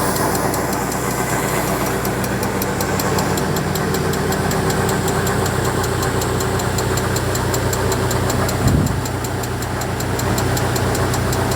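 A tractor engine running steadily, driving a PTO-powered flour mill, with a fast, even ticking from the machinery over it. A short thump comes about nine seconds in.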